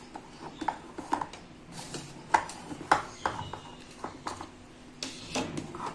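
Kitchen knife run around the inside wall of a metal cake pan to loosen a baked cake, the blade giving irregular light clicks and scrapes against the metal.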